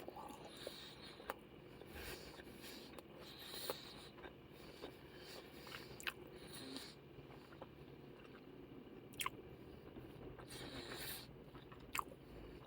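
A person chewing a mouthful of doner kebab meat, faint, with a scatter of short sharp clicks.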